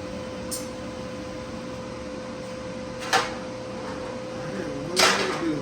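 Steady hum from a TIG welding setup. A faint click comes about half a second in, then two short noisy bursts about three and five seconds in, the second the loudest.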